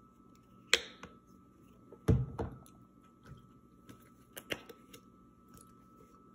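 Sauce squeeze bottles being handled: a few sharp plastic clicks and knocks, with a duller thump about two seconds in as a bottle is set down.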